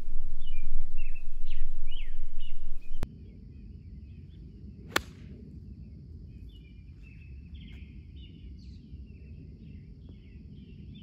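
A single sharp crack of a golf club striking the ball on a tee shot, about five seconds in. Birds chirp and sing throughout. For the first three seconds a loud low rushing noise lies over everything and cuts off suddenly.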